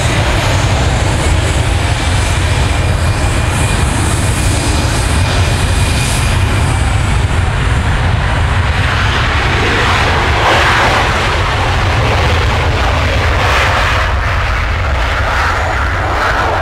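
Two McDonnell Douglas F-4 Phantom II jets on a formation take-off run, their twin J79 turbojets at take-off power, loud and steady. The noise grows harsher from about nine seconds in as they speed down the runway and lift off.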